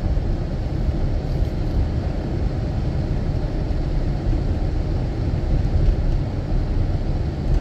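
Steady road and engine noise heard from inside a truck's cab while driving: an even low rumble.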